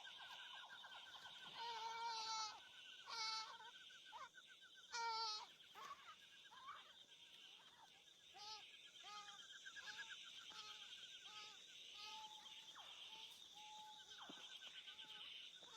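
An animal's short, wavering, high calls. A few louder ones come in the first five seconds, then many shorter ones follow in quick succession, over a steady high buzz.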